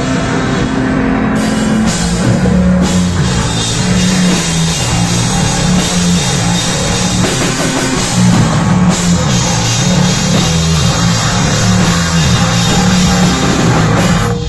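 Live rock band of drum kit and electric bass guitar playing loud, stopping abruptly near the end as the song ends.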